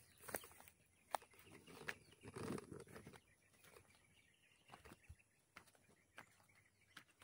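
Near silence, broken by faint scattered clicks and one brief muffled sound about two and a half seconds in.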